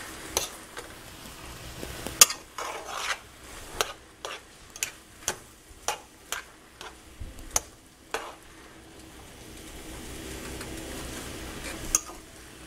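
Metal tongs clinking and scraping against a frying pan as stir-fried noodles are tossed, with a soft sizzle underneath. The sharp clinks come irregularly, about one every half second, then give way to a steadier sizzle for the last few seconds.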